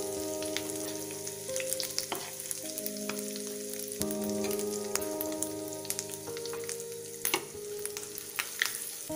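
Gram flour (besan) sizzling in hot ghee in a nonstick frying pan as it is stirred and roasted, with the spoon ticking and scraping against the pan. Soft background music with sustained chords that change every second or two plays throughout.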